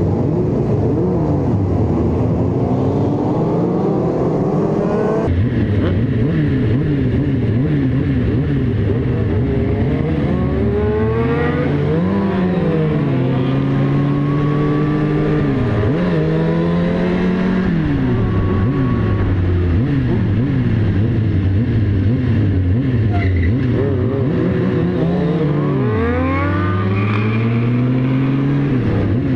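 Sport motorcycle engines revving hard; after a cut about five seconds in, one bike's engine is heard from on board accelerating through the gears, its pitch climbing and then dropping at each upshift, again and again.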